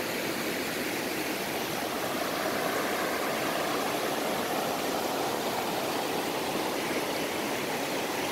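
A shallow rocky river rushing steadily over cobbles and around boulders, a continuous even rush of water.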